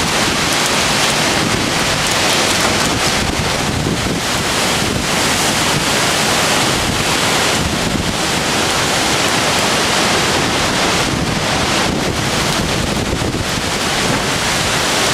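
Violent storm wind blowing hard and buffeting the microphone: a loud, steady rushing roar.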